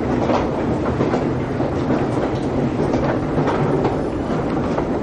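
Old wooden escalator at Macy's running, its treads giving a steady rattling clatter of rapid clicks. The steps are a little loose and noisy with age.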